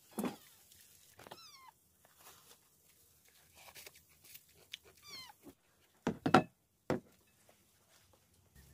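A cat meowing: two short, high, falling meows, with a couple of louder short thuds about six to seven seconds in.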